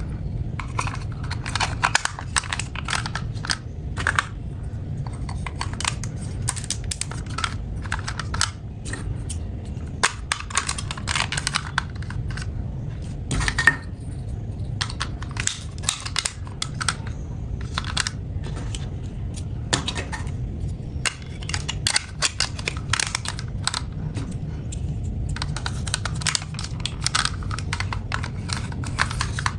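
Hard plastic toy pieces clicking and clattering as they are handled and fitted together, in quick irregular taps over a steady low hum.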